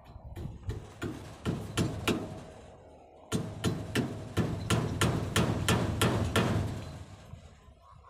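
Hammer striking a wooden frame: a run of sharp blows, about three a second, with a short pause a little before the middle.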